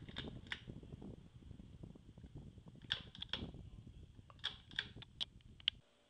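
Ceiling fan running faintly under a low, uneven rumble, with scattered sharp clicks and ticks in a cluster about three seconds in and again near the end.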